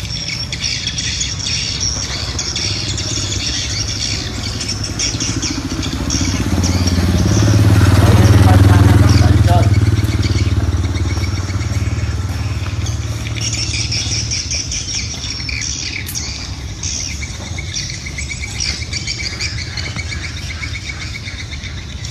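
A motorbike engine passing by, growing louder to a peak about eight or nine seconds in and then fading away, over continuous bird chirping.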